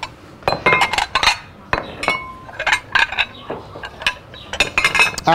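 Cutlery clinking against ceramic plates, a string of sharp clinks, a few of them ringing briefly.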